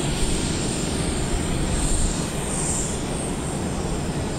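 Steady jet aircraft noise with a high whine that swells briefly about two seconds in.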